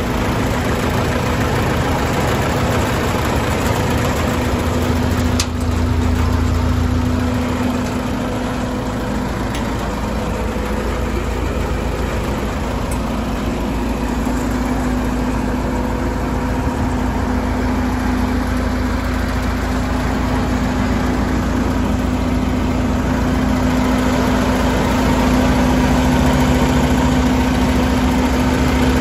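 Lincoln SA-200 DC arc welder's engine running steadily.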